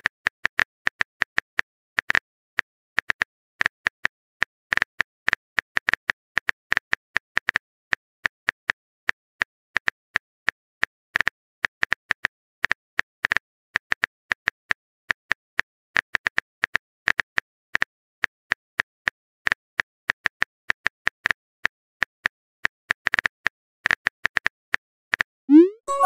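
Phone keyboard typing clicks from a texting app: short, sharp taps, about four a second and unevenly spaced, as a text message is typed out letter by letter. Near the end a short rising whoosh as the message is sent.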